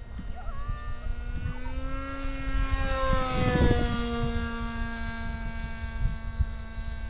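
Radio-controlled Sporter .46 model airplane's two-stroke .46 glow engine running flat out on a fly-by. Its whine rises in pitch as it comes in, is loudest about three and a half seconds in, then drops in pitch and carries on lower as it flies away.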